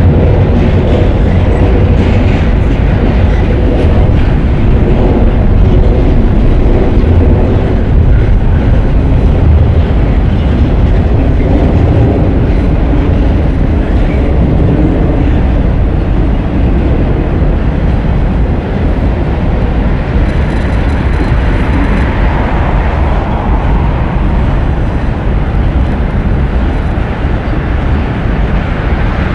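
Double-stack intermodal freight train rolling past: a loud, steady rumble of the cars' wheels on the rails.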